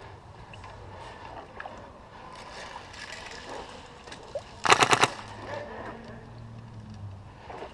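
A short burst of about half a dozen rapid sharp shots from a Polarstar compressed-air airsoft RPK, over in under half a second, a little less than five seconds in.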